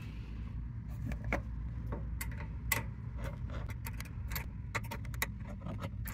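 Irregular small metallic clicks and clinks of a wrench and nut as a battery cable's ring terminal is fastened onto an electric starter's terminal stud, over a steady low hum.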